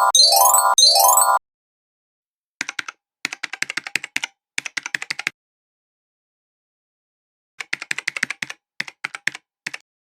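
Three quick rising chimes in the first second and a half, then keyboard typing: two spells of rapid key clicks with a pause of about two seconds between them.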